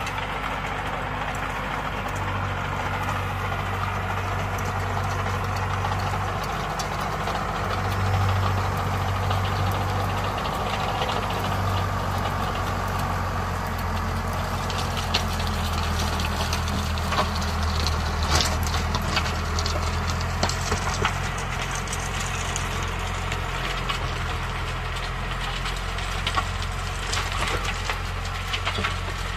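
Tractor engine running steadily under load as it drives a rotary tiller through ploughed soil. From about halfway on, frequent sharp clatter of clods and stones striking the tiller blades.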